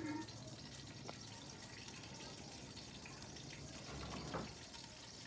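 Faint water sounds from an aluminium pot of water on a wood fire being stirred with a metal spoon, with light clicks near the start and about a second in.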